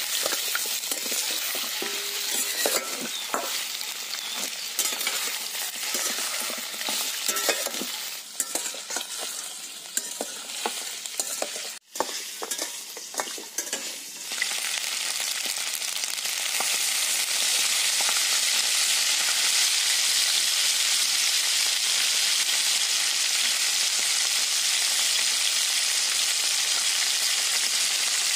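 Mutton pieces sizzling in hot oil in a steel kadai, stirred and scraped with a steel spoon that clinks against the pan. About halfway through the clinking stops and a steady sizzle carries on.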